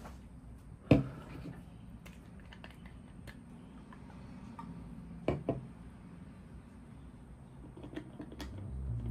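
Plastic toner bottle and its screw cap handled on a desk: a sharp knock about a second in, a double knock around five seconds, and small clicks and taps between.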